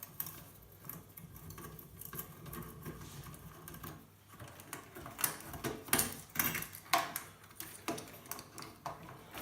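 Irregular clicks, taps and clatter of metal and plastic computer parts being handled while an old PC tower is taken apart, growing busier and louder about halfway through, over a faint steady low hum in the first few seconds.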